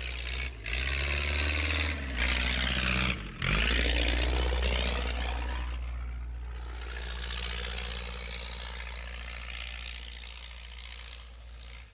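Toyota Town Ace van's diesel engine running as the van drives through snow, its pitch rising and falling with the throttle, then fading as the van moves away. The engine is running on a WD-40-style penetrating spray fluid instead of diesel fuel.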